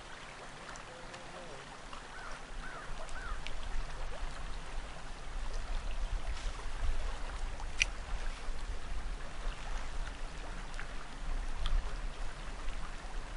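River water flowing over a shallow riffle, a steady wash, with a low rumble coming in about two seconds in. A single sharp click just before eight seconds in.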